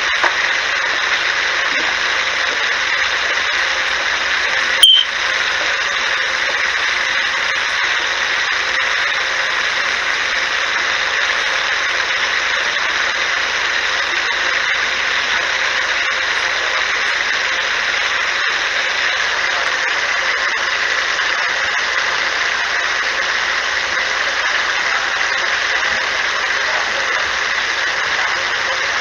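Steady hiss with no clear pitch or rhythm, and one sharp click about five seconds in.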